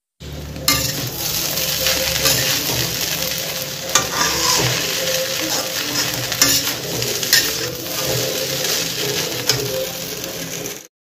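Poha frying in a metal kadai, sizzling, while a metal spatula stirs and scrapes it around the pan, with a few sharper scrapes along the way. The sound stops abruptly near the end.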